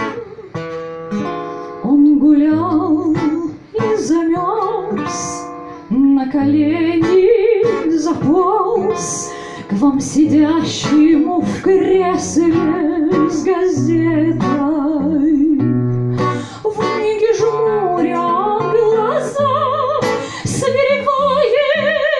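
A woman singing a comic bard-style song with a wavering vibrato, accompanied by an acoustic guitar.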